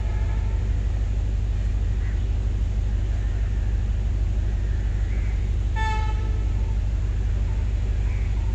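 A train horn gives one short toot about six seconds in, over a steady low rumble.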